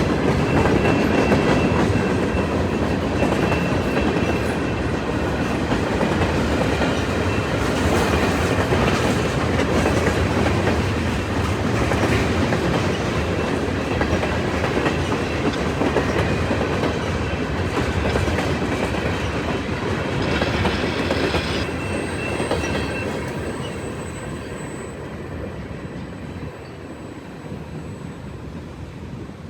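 CN freight train cars rolling past, the wheels clicking steadily over the rail joints. The sound fades away over the last several seconds as the train moves off.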